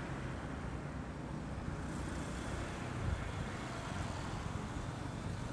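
Motorcycle-taxi (boda boda) engine running steadily at riding speed, heard from the pillion seat, with road and wind noise over it.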